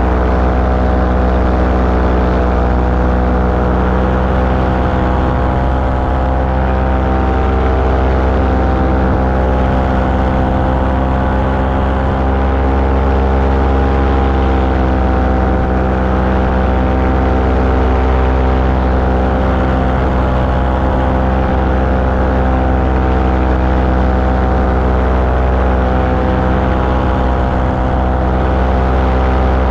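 Small aircraft engine running steadily at a constant speed in flight, heard from on board, with rushing air behind it.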